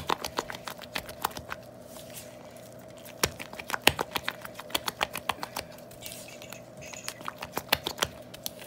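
Spatula stirring thick buttercream in a stainless steel bowl, with quick irregular clicks and taps as it knocks and scrapes against the bowl, over a steady low hum.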